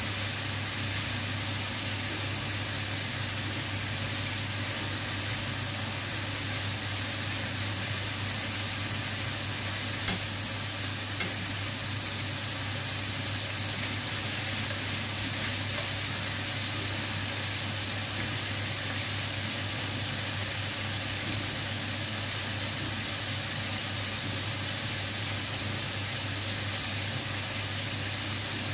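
Marinated chicken pieces sizzling steadily in hot oil in a wok, over a steady low hum. Two sharp clicks of metal tongs against the pan come about ten and eleven seconds in.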